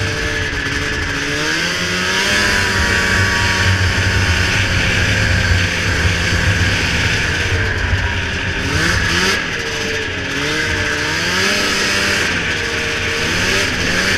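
Ski-Doo snowmobile's 583 two-stroke engine running under throttle with heavy wind and track noise. Its pitch climbs about two seconds in and holds, then rises and falls several times in quick succession in the second half as the throttle is worked.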